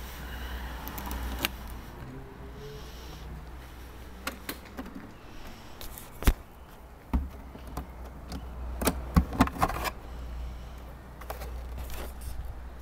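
Camera handling noise: scattered clicks, knocks and rattles over a steady low rumble, with a single sharp knock about six seconds in and a cluster of knocks around nine seconds.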